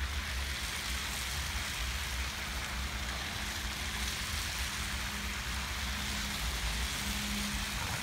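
Cars passing on a wet, slushy street: a steady hiss of tyres through slush over a low rumble.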